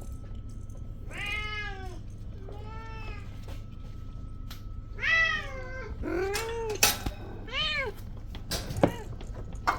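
Kitten meowing repeatedly: about five separate high meows, each rising and then falling in pitch, with a couple of sharp knocks between the later ones.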